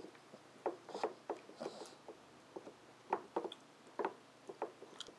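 A Boston terrier's paws and claws tapping and scraping on a wooden puzzle board and its wooden pieces: irregular light knocks, about a dozen, spaced unevenly.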